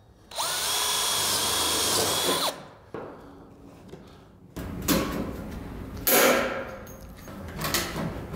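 DeWalt cordless drill running for about two seconds with a steady whine as it bores a hole through folded sheet-metal gable trim for a rivet. From about halfway on comes a series of sharp handling noises and squeezes as a hand rivet tool sets the rivet.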